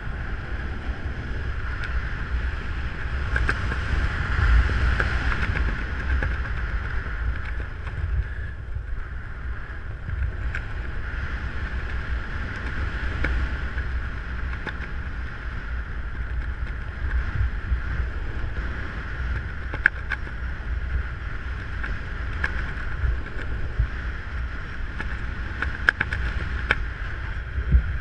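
Wind rushing over the camera microphone during a parachute descent: a steady low rumble, with a few sharp clicks in the second half.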